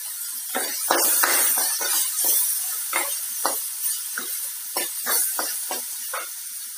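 A metal ladle scraping and clinking against a kadhai as chopped vegetables are stirred while they fry: about fifteen short, irregular strokes over a steady sizzle.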